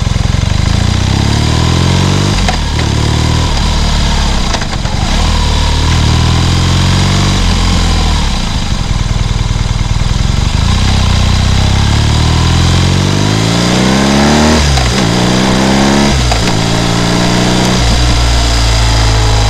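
BMW R nineT Scrambler's 1170 cc air/oil-cooled boxer twin pulling under acceleration while riding. The revs climb in repeated sweeps and drop back at each of several gear changes.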